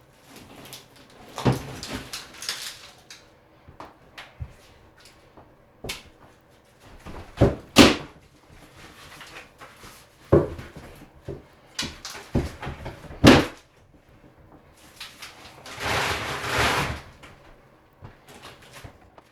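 Drywall being pried and broken off a wall with a pry bar: irregular sharp knocks and cracks, a few of them in quick pairs, then a longer scraping, rustling stretch near the end.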